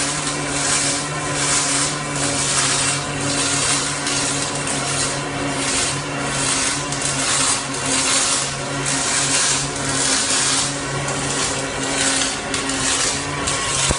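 MIG welding arc on stainless steel: a continuous crackling hiss that wavers in strength, over a steady low hum.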